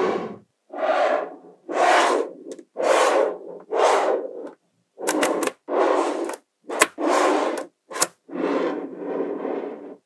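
Small magnetic balls rubbed and rolled together in repeated short scraping bursts, about one a second, with a few sharp clicks as balls snap together.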